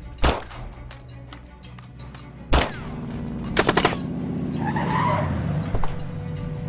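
Gunshots: a single shot, another about two seconds later, then a rapid burst of four and one more a couple of seconds after, followed by a car engine revving up as the car pulls away, over background music.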